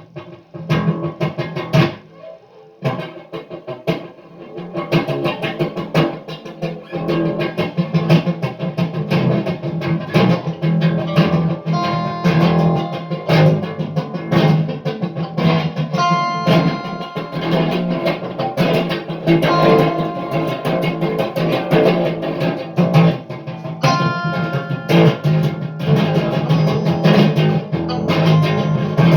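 A guitar being played with many quickly picked notes and strums. It is sparse and quieter for the first few seconds, then fuller and busier.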